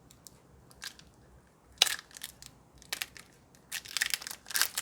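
Foil wrapper of a Pokémon card booster pack crinkling and crackling as it is handled and torn open, in scattered sharp crackles that come thicker near the end.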